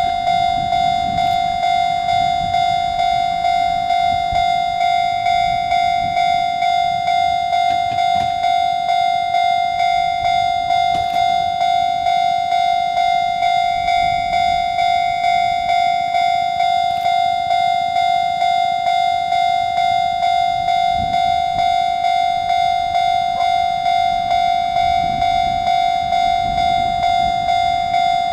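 Japanese railway level-crossing warning bell ringing, a repeating electronic ding at about two strikes a second.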